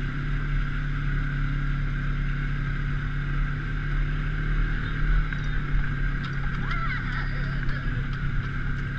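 Motorboat engine running at a steady speed: a continuous drone that holds its pitch, with rushing noise around it.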